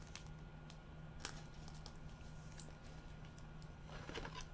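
Faint handling noise of a thick trading card in gloved hands: a few light clicks and rustles over a low, steady hum.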